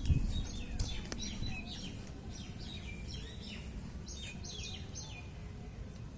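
Small birds chirping: a run of short, downward-sliding chirps that stop about five seconds in, over a steady low outdoor rumble, with a low thump at the very start.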